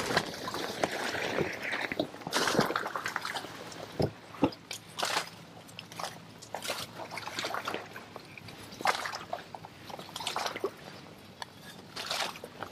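Paddle strokes pushing a small boat through dense marsh vegetation: irregular swishes, sloshes and drips of water, with leaves brushing past and a couple of sharp knocks about four seconds in.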